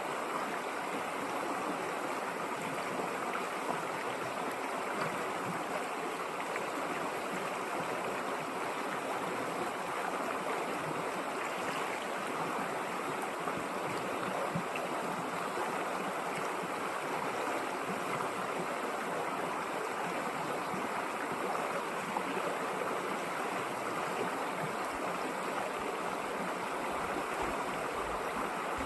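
A river running over stones: a steady rushing and burbling of flowing water.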